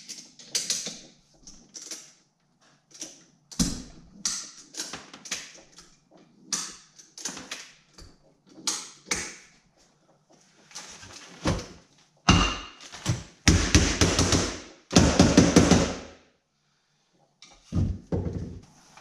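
Runs of short clicks and knocks as a strap anchored to a shelf is worked tight to pull the rotten plywood transom out of an aluminum boat, followed by several longer, louder rasping sounds in the last few seconds.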